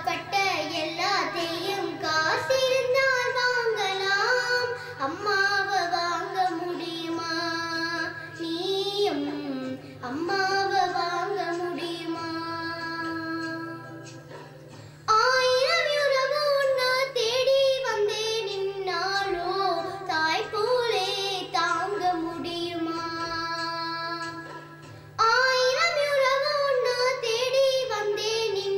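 A young girl singing a Tamil song solo into a handheld microphone, in long phrases with held, wavering notes. Two brief breaks between phrases come about halfway and near the end.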